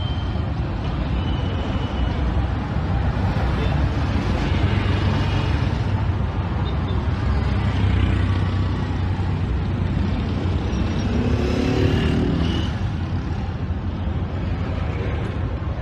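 Busy street traffic: the engines of cars, tricycle taxis and motorbikes running on the road make a steady low rumble, with scattered voices of people on the street.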